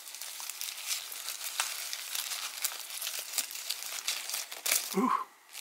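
Crinkling and crackling of a LiPo pouch cell's thin plastic separator film and coated electrode sheets being pulled apart by hand, a dense run of small crackles that stops shortly before the end.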